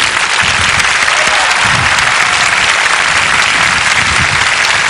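Loud, steady applause from a very large open-air crowd.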